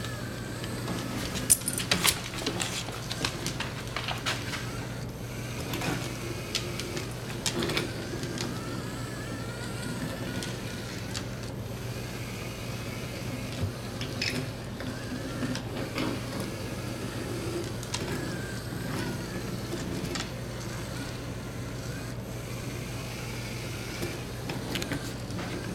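Small two-wheeled hobby robot's gear motors whirring in short spells as it turns and drives across a hardwood floor, over a steady hum. Scattered sharp clicks, a cluster of them about two seconds in being the loudest.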